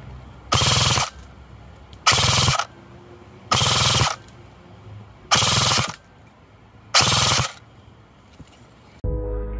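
Double Bell BY-012 AK airsoft electric gun (AEG) firing five short full-auto bursts of about half a second each, at roughly 18 to 21 shots per second on an 11.1 V LiPo battery.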